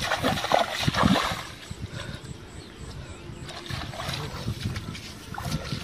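Splashing and sloshing as feet wade through a shallow, muddy ditch of water, busiest in the first second or so and then quieter and more scattered.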